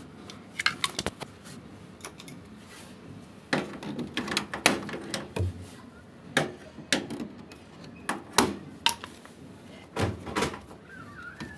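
Irregular knocks, clunks and rattles of hard parts being handled, a few of them loud and sharp, as when a door or panel is worked on a washing machine.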